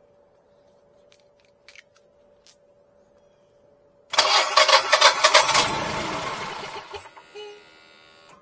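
A few faint clicks, then about four seconds in the Generac Guardian standby generator's engine cranks loudly in a pulsing rhythm for about two seconds and fades away over the next few seconds without keeping running: the generator is failing to start.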